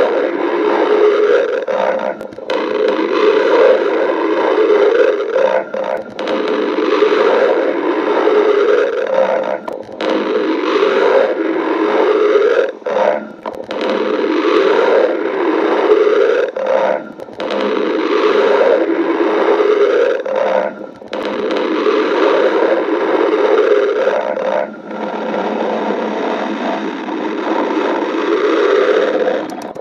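Stomach growling: loud, rough gurgling rumbles in runs of a few seconds, with a brief break about every four seconds.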